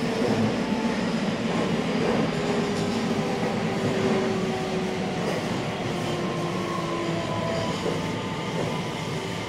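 A JR West 321 series electric train running. Its Hitachi IGBT inverter and traction motors give off thin whining tones that shift in pitch in steps, over a steady rumble of wheels on rail.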